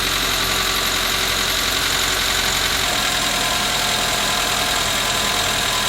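The 2004 Mitsubishi Lancer's 4G18 four-cylinder engine idles steadily. It is being run for a minute just after an oil change so that oil fills the new oil filter.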